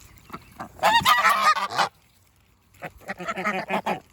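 Domestic geese honking in two loud bouts of rapid calls, each about a second long, with a short pause between.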